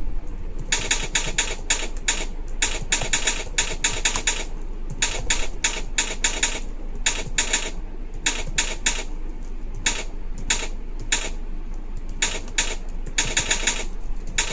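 Typing on a computer keyboard during a one-minute typing test: bursts of quick key clicks broken by short pauses, at an uneven pace that comes to about 24 words per minute.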